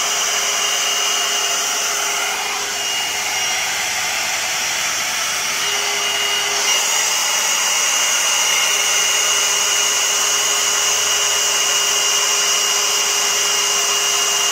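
Hot-air blow-dry brush running on its high setting: a steady rush of air with a thin motor whine, the whine brightening slightly about halfway through.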